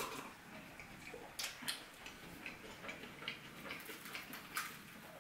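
Close-up eating sounds: a sip from a small glass bowl of soup, then scattered short mouth clicks and smacks while chewing bread.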